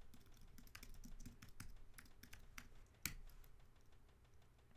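Faint typing on a computer keyboard: a quick run of key clicks, with one louder keystroke about three seconds in.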